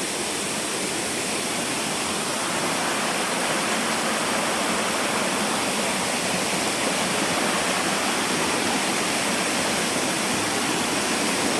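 Waterfall, its water rushing in a steady, dense wash of noise that grows a little louder a couple of seconds in.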